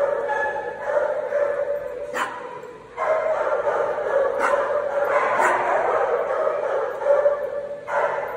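Dogs barking and yipping, with a few sharp yips standing out and a brief lull near the middle.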